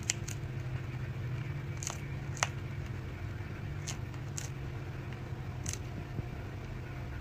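Chinchilla biting into a dried strawberry slice: about seven short, crisp crunches a second or so apart, over a steady low hum.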